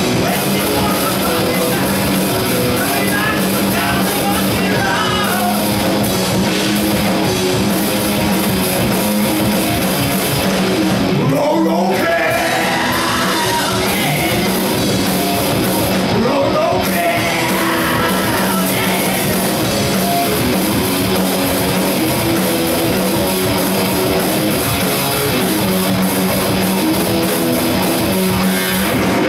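Live rock band playing at full volume: electric guitars and a drum kit, steady and loud throughout.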